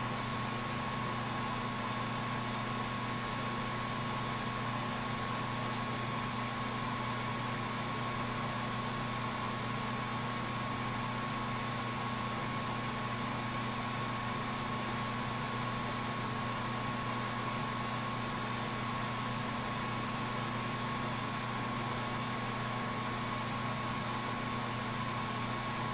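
Steady hiss of a glassworking bench torch burning, with a constant low hum and a faint high steady tone underneath.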